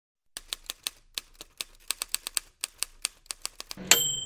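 Typewriter keys clacking in an uneven run of about twenty strokes as a title is typed out, then the carriage bell dings once near the end and rings on.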